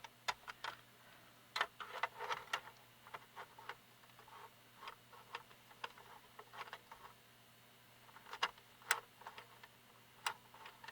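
Scattered small clicks and taps from handling a portable cassette radio's tape deck, irregular and quiet, with small clusters of clicks about two seconds in and again near the end.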